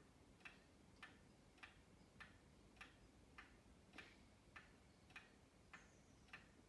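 A 1960s Hermle weight-driven pendulum wall clock ticking faintly and evenly, a little under two ticks a second.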